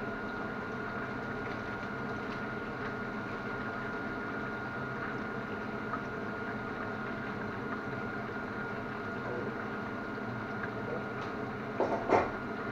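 Chicken breast frying in a grill pan on a gas hob: a steady sizzling hiss. Two short knocks come near the end.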